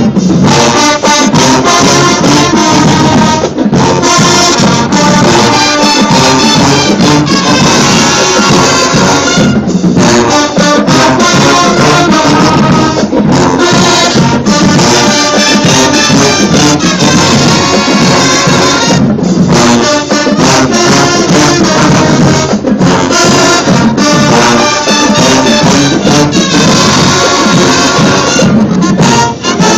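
Marching band playing loudly: a brass section over driving drums and percussion, with short full-band stops now and then.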